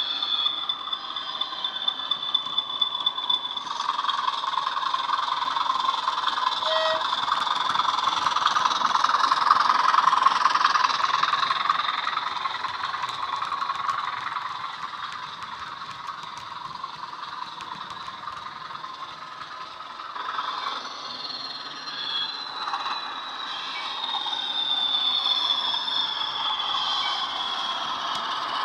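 A Bachmann Class 20/3 OO-gauge model locomotive's DCC sound decoder playing Class 20 diesel engine sound through its small double iPhone mini speaker, thin in the bass, with a high whistling tone over the engine. It mixes with the model's wheels running on the track and grows louder as the locomotive comes close, loudest about ten seconds in.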